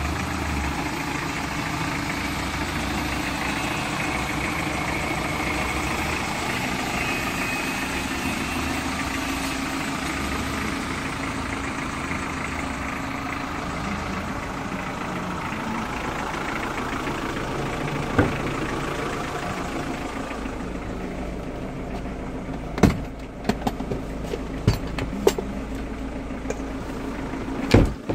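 Kia Bongo 1-ton truck's turbocharged intercooled diesel engine idling steadily. From about twenty seconds in it sounds duller. A few sharp knocks and clatters come near the end.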